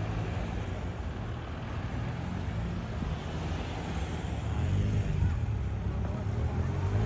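Low, steady engine hum from motor traffic, growing louder about halfway through.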